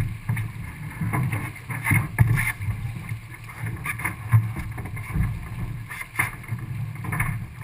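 Wind buffeting the microphone aboard a small racing sailboat under way, a steady low rumble, with scattered knocks and rustles from the crew working lines on deck.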